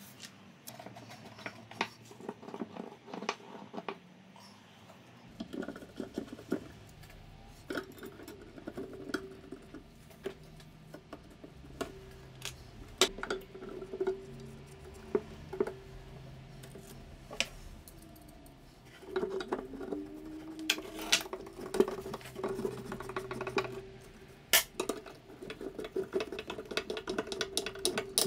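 Cast iron drill-frame parts and brackets being handled and set against wooden beams on a workbench: scattered clicks, taps and light knocks of metal on wood and metal, busier for a few seconds past the middle.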